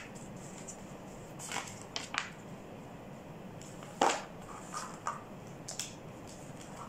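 Handling noises from a handheld massager: scattered light clicks, knocks and rustles as it is turned over and fiddled with, the loudest knock about four seconds in.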